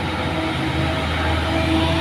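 Heavy cargo trucks' diesel engines pulling uphill under load, a steady drone with several held tones that grows a little louder near the end as the trucks come closer.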